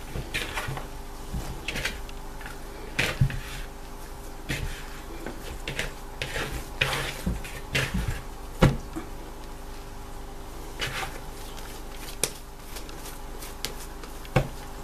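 Hands kneading a soft pizza dough in a bowl: irregular slaps, thumps and squelches as the dough is pressed, folded and knocked against the bowl, over a steady low hum.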